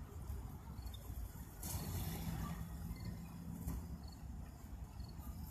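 Outdoor park ambience: a low rumble with faint high chirps now and then. A steady low hum and hiss come in at about two seconds and fade after about four.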